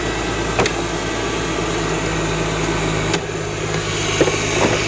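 Mercedes GLK 350's V6 engine idling steadily, with two faint clicks. The whistle from a belt idler pulley has stopped: the owner puts this down to the pulley's bearing having been sprayed with WD-40.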